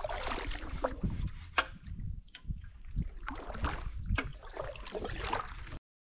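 Canoe paddles dipping and pulling through calm creek water, with splashing and dripping and a few sharp knocks. The sound stops abruptly shortly before the end.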